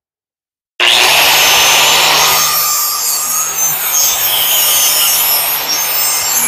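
Angle grinder in a mower-blade sharpening jig, grinding the steel cutting edge of a lawn mower blade. It starts abruptly about a second in, a loud harsh grinding over the steady hum of the grinder's motor.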